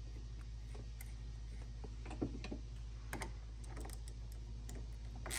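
Scattered light clicks and taps of small metal parts being handled, as a retainer clip is fitted onto the throttle housing on the handlebar, with a sharper click about two seconds in, over a steady low hum.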